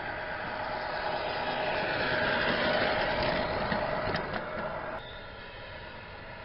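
A 1/14 Tamiya MAN radio-controlled truck running, with a steady pitched hum from its drive that grows louder toward the middle. About five seconds in the sound changes suddenly and drops.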